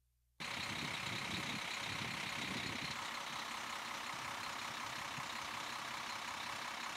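Near silence, then about half a second in a steady street noise cuts in sharply: a parked coach bus idling, a constant hiss with a low rumble that is stronger for the first two or three seconds.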